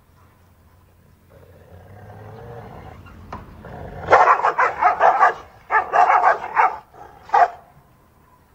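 Dogs growling low, then breaking into fast, loud barking about four seconds in: two quick runs of barks and a single bark near the end.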